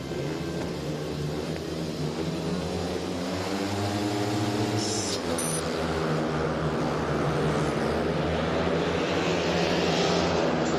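Speedway motorcycles' 500cc single-cylinder engines revving. One note rises and falls about four seconds in, and the engine sound grows louder toward the end.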